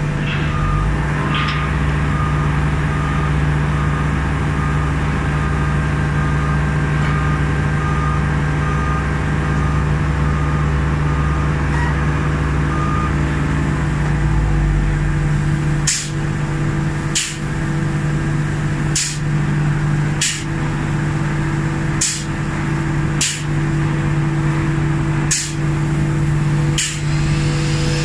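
Loud steady drone of ship-painting machinery, with a boom lift's motion alarm beeping repeatedly over a low motor rumble for the first dozen seconds. From about halfway there are short sharp hissing bursts about every second and a half from the airless paint spray gun.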